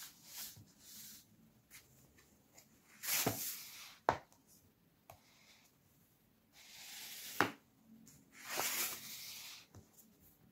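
Paperback books slid by hand across a hard tabletop: three brushing swishes of paper on the surface, with two sharp taps as a book is set down.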